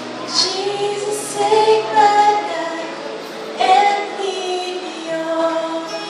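A woman singing a slow melody into a microphone, with held notes, over acoustic guitar accompaniment.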